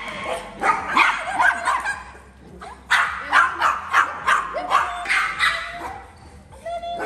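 Small dog yapping repeatedly in two quick runs of short, high barks, with a lull in between.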